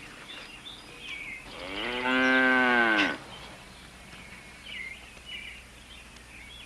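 A cow moos once, about a second and a half long, its pitch rising and then falling.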